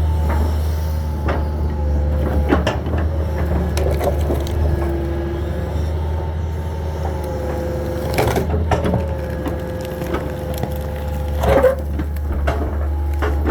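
Hitachi 225 excavator's diesel engine running steadily, with a steady whine over it, while wood and debris crack and splinter at irregular intervals as the machine clears them. The loudest cracks come about two-thirds of the way through and again near the end.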